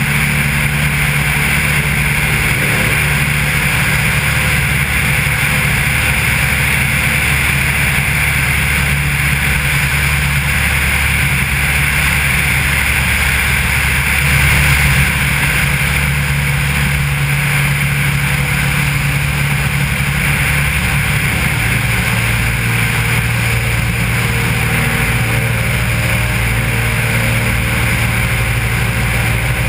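Maule M4 floatplane's piston engine and propeller droning steadily in cruise flight, with wind rushing over the wing-tip-mounted camera. The engine note changes slightly about two-thirds of the way through.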